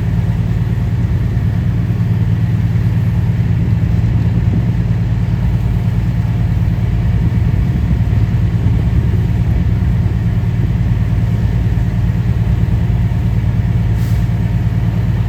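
Fire apparatus diesel engine idling steadily, a constant low drone.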